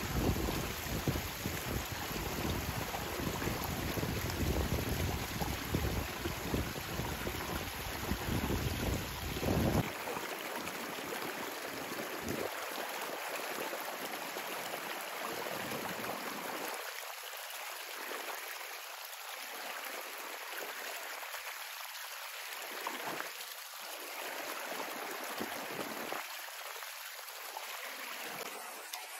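Steady rush of flowing river water, with wind buffeting the microphone as a low rumble for about the first ten seconds; after that the rumble stops abruptly and only the water's hiss remains.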